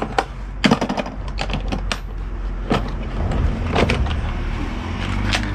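Plastic clips on a Mercedes C200's cabin filter cover being released, a series of sharp clicks and knocks as the cover and filter are handled, over a steady low hum.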